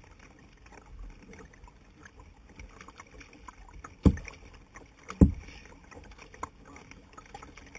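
Canadian canoe on the water: a low wash of water against the hull with small scattered splashes and drips. Two loud, sharp thuds about a second apart fall near the middle.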